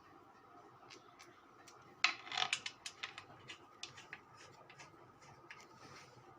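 Metallic clicks and clinks of hard parts or tools being handled, a quick cluster about two seconds in and then lighter scattered clicks, over a faint steady hum.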